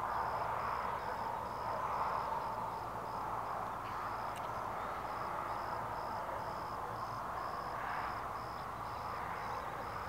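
Steady rushing noise that swells and fades, with an insect chirping high and even, about three pulses a second.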